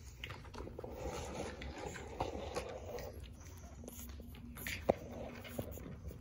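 Pug puppy chewing and mouthing, with soft scuffling and rustling and a sharp click about five seconds in.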